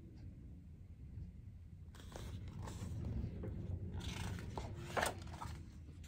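Paper rustling as a picture book is handled and a page is turned, with one sharp snap of paper near the end.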